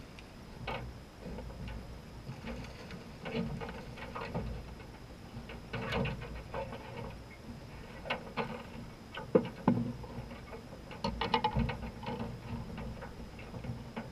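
A hooked bass splashing at the water's surface as it is reeled to the boat, then scattered knocks and rattles as it is swung aboard and handled in the small boat, with a quick run of rattling clicks near the end.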